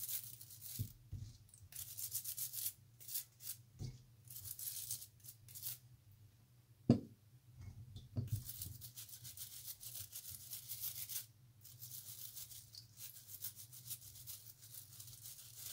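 Stiff plastic-bristled dish brush scrubbing soil off beetroots in a bowl of water, in quick rasping strokes that come in spells. A single sharp knock about seven seconds in.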